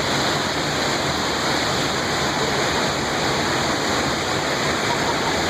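Waterfall rushing, a steady loud roar of falling water.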